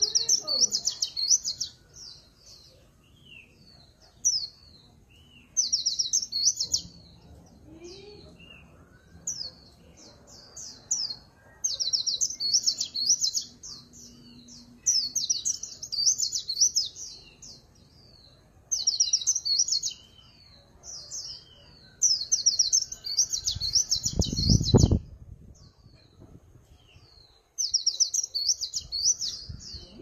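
A caged white-eye sings its 'líu pha chòe' song: bursts of rapid, high trilled warbling phrases, one to three seconds each, broken by short pauses. The song style mixes in magpie-robin-like notes. Near the end a brief low rumble sounds once.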